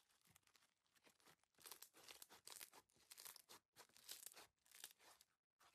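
Faint, dense crackling and crunching of a gray bead-filled crunchy slime as hands squeeze and stretch it, with the crackles thickest through the middle and thinning out near the end.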